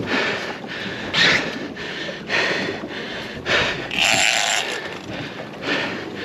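Heavy conventional big-game reel and rod being worked against a hooked shark, the reel cranked in short bursts about once a second, over wind and water noise.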